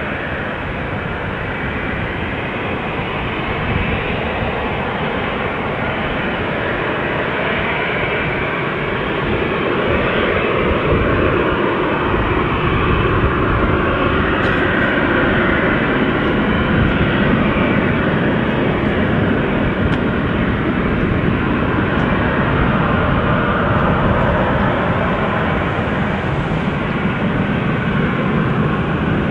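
Airbus A380's four turbofan engines at takeoff thrust, a loud, steady rush of jet noise that grows slightly louder over the first dozen seconds as the airliner climbs away.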